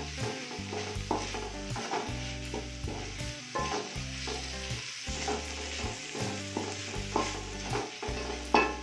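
Green beans sizzling as they stir-fry in an aluminium wok, with a wooden spatula repeatedly scraping and knocking against the pan, sharply once near the end.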